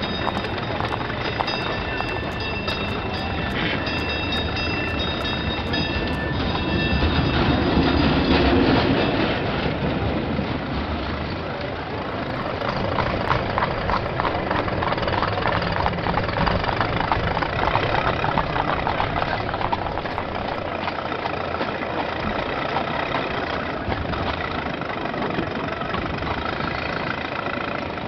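Sound-designed street ambience for a 1906 street scene: the steady rumble and clatter of a cable car running on its rails, with early motor-car engines and street traffic mixed in. A fine rhythmic clatter comes forward in the middle stretch.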